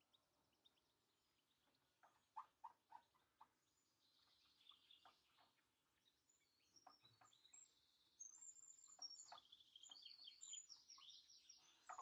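Faint birdsong from several wild birds: high chirps and twittering that grow busier in the second half, with a few short, lower notes about two to three and a half seconds in.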